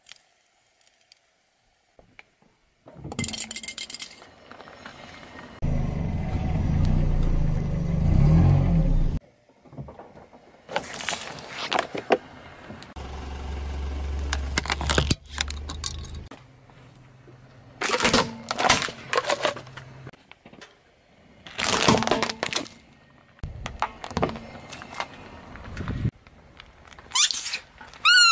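Several short takes of a car tyre rolling over small plastic objects, a fidget spinner and sunglasses among them, with cracking and crunching as they break. Between the cracks the car's engine runs.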